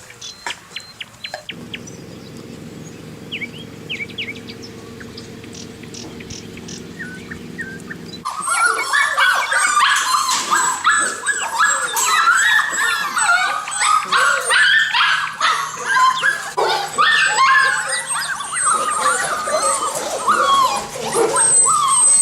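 Several dogs whining, yelping and howling at once in a dense, overlapping chorus that starts suddenly about eight seconds in. Before that there are only faint chirps and clicks over a low hum.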